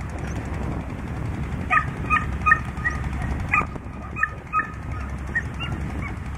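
Short, sharp animal yelps repeated irregularly, starting about two seconds in, over a steady low rumble.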